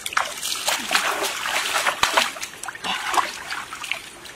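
Shallow stream water splashing irregularly as a person wading in it splashes at the water with a hand.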